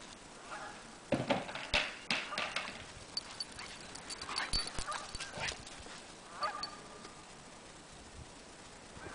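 Geese honking now and then. About a second in there is a short run of loud thumps from a large dog galloping across the grass close by.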